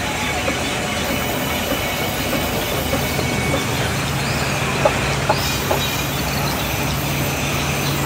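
Industrial band sawmill running, its blade cutting a timber plank as it is fed through, with a steady low hum and a few short wooden knocks partway through.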